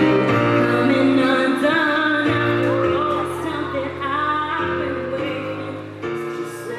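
A singer's voice over electric keyboard chords, played live; the chords change every second or two and the music grows softer toward the end.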